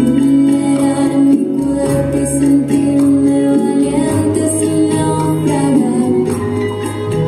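Music with a woman singing, held notes over a bass line that shifts every couple of seconds.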